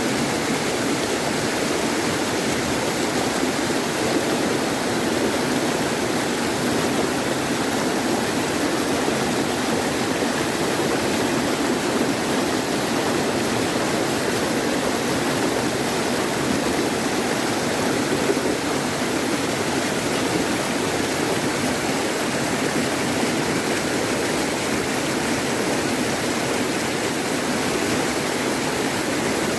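Mountain valley stream water rushing, a steady, unbroken flow.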